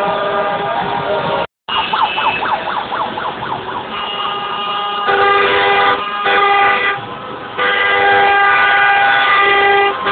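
Many car horns honking together in long, overlapping held notes of different pitches, with a fast warbling siren-like tone about two seconds in. The sound cuts out for an instant at about a second and a half in.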